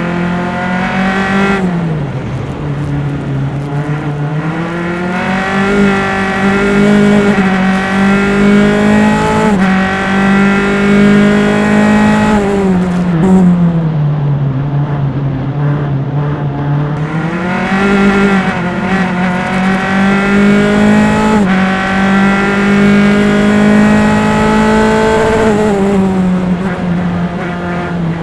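Open-wheel single-seater race car engine heard onboard, running hard at high revs. Its pitch drops as the car slows for corners, about a second in, again around twelve to sixteen seconds in and near the end, and climbs again as it accelerates out.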